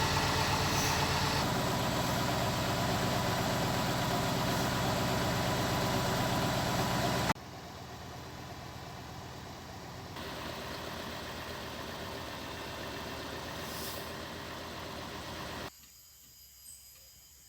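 MAN logging truck's diesel engine idling steadily. About seven seconds in the sound drops suddenly to a quieter engine, and near the end it drops again to a faint background with a few small clicks.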